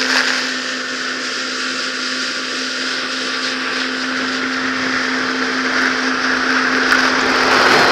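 Yamaha WaveRunner VX Sport jet ski running at a steady speed: an even engine hum holding one low tone, under the hiss of water and wind.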